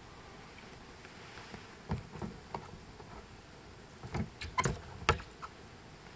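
Several short knocks and clicks at uneven intervals: three about two seconds in, then three more between four and five seconds, the last the loudest, over a low steady background.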